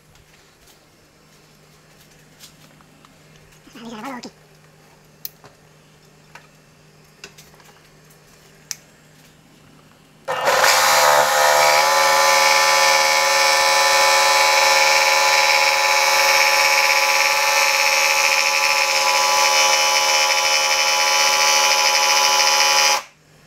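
Cordless jigsaw cutting a speaker hole in a Bobcat cab panel. After a few light clicks and knocks, the saw starts suddenly about ten seconds in, runs steadily for about twelve seconds, and cuts off abruptly near the end.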